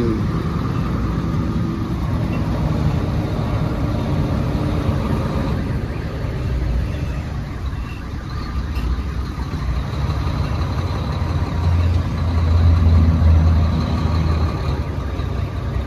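Volvo semi-truck's diesel engine running at low speed, heard from inside the cab as a steady low rumble. The rumble grows louder for about two seconds near the end, then settles back.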